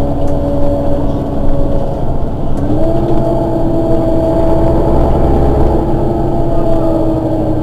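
The rear-mounted engine of a Mercedes-Benz Citaro city bus running while the bus stands still. Its hum steps up in pitch about two and a half seconds in and holds at the higher speed, as the idle rises.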